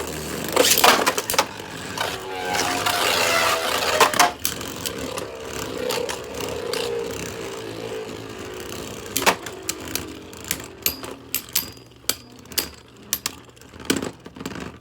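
Two Beyblade spinning tops are launched into a plastic stadium, with a sharp rush from the launchers. A whirring tone then falls slowly in pitch as the tops lose speed, and from about nine seconds in the tops clash with repeated clicks and rattles, thickest near the end.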